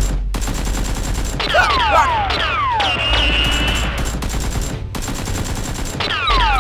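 Dubbed-in gunfire sound effects: rapid bursts of shots mixed with falling whistling sweeps, over a backing track with a deep steady bass.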